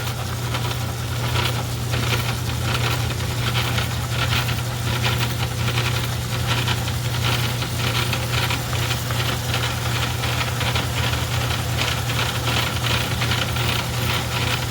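Craftsman 109 metal lathe running under a cut, its cutting bit turning down a centering cone: a steady motor hum with a fast, even rattle over it. A single sharp click comes right at the start.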